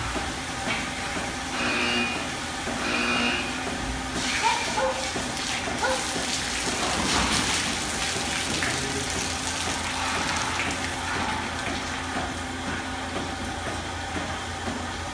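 Milking parlour ambience: a steady machinery hum under a continuous rushing, water-like noise, with scattered clanks and knocks.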